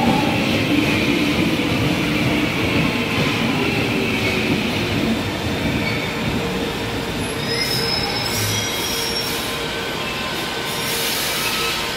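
Brasília Metro Série 2000 electric train pulling into the platform and slowing: a steady rumble of wheels on the rails with a humming motor tone, and thin high brake and wheel squeals in the last few seconds as it comes to a stop.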